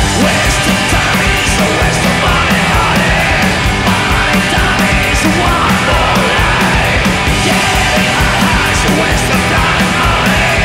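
Psychobilly punk rock recording: a full band playing loud and without a break, with a steady driving drum beat.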